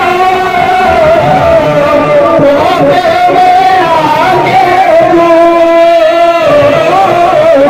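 A group of men singing a devotional song together into handheld microphones, in long, wavering held notes without a break.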